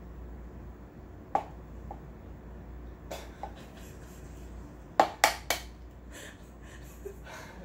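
An egg tapped against the rim of a plastic measuring jug to crack it: a single tap, a few lighter ones, then three sharp taps in quick succession about five seconds in.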